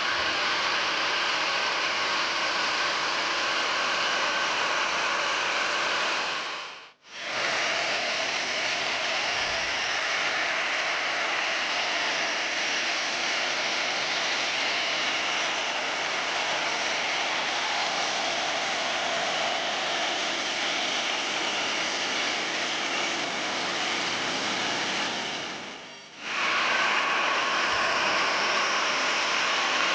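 Boeing 737-800's CFM56-7B jet engines running with a steady whine over a broad rush of noise. The sound drops out briefly twice, about seven seconds in and again near the end.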